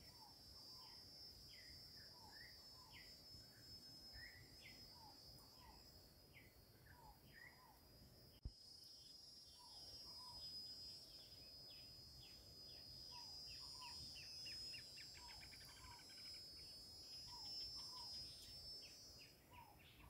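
Faint outdoor ambience: insects drone steadily on one high pitch, fading just before the end, while birds give short chirps over and over, with a quick run of notes around the middle-to-late part. A single sharp click about eight seconds in.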